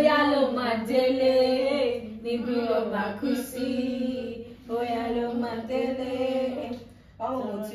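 Unaccompanied female singing: a slow, chant-like melody sung in three long held phrases, with another phrase starting near the end.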